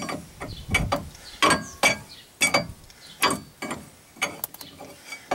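Hand tools working on the steering tie rod end of a 2002 Chevy truck's front end: a run of sharp metallic clicks and clanks, uneven, about two a second, some ringing briefly.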